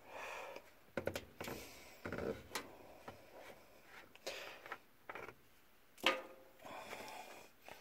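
Scattered soft knocks and clicks with short rubbing, scuffing noises in a small room.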